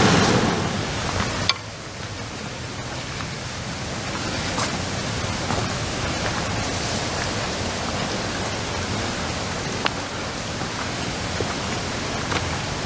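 Niagara River rapids rushing, with a sharp drop about a second and a half in to a softer, steady rushing of water heard from further off. A few sharp ticks stand out now and then.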